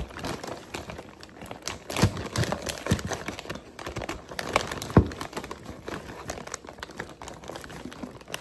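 Plastic packaging of a store-bought rotisserie chicken crinkling and rustling as it is handled, with scattered clicks and two sharper knocks about two seconds in and about five seconds in, the second the loudest.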